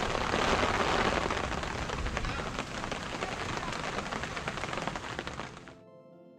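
Steady rain falling on and around a fabric screen tent, heard from inside as a dense patter of drops. It cuts off suddenly near the end and soft keyboard music takes over.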